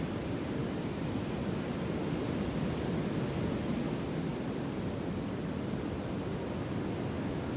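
Ocean surf washing steadily: an even, low-pitched wash of noise with no single wave breaking out above the rest.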